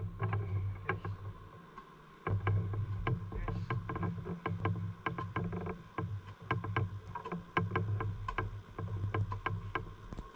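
Low, steady drone of a boat engine on the water, dropping out briefly twice, with many irregular sharp clicks and knocks over it.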